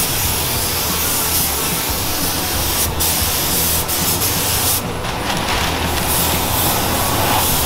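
Gravity-feed paint spray gun hissing steadily as it sprays black paint, with two short breaks around three and four seconds in and a longer let-up around five seconds in.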